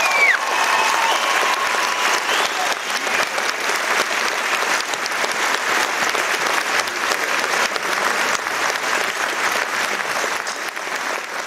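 Theatre audience applauding, a dense steady clapping that begins to fade near the end.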